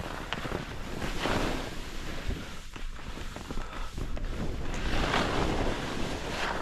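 Skis carving turns down a snowy slope, the edges scraping through the snow in swells with each turn, with wind buffeting the microphone.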